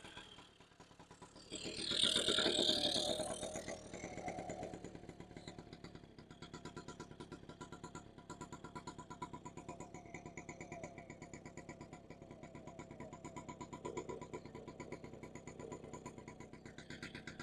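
1977 Honda Express NC50's small two-stroke engine running: a brief rev about two seconds in, then a steady, fast, even idle. It is running much better now that a connection left off has been hooked back up.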